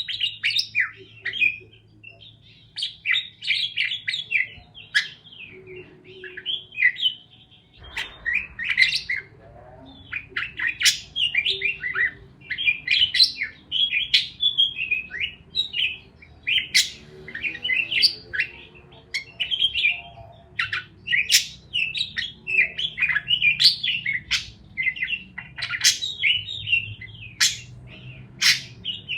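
Parakeets chirping in quick, busy runs of short high chirps with sharp clicks mixed in, broken by a couple of brief pauses.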